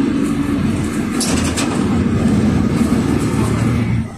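Interior noise of a PAZ 4234-05 bus under way: its Cummins ISF3.8 four-cylinder turbodiesel runs steadily under the floor, mixed with road noise. The noise drops suddenly just before the end.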